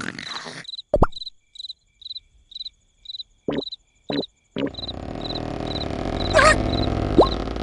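Cartoon soundtrack: crickets chirping steadily, about two chirps a second, under a string of short comic sound effects. About halfway in, a loud continuous rumbling noise takes over, with a wobbling squeal and a quick rising whistle near the end.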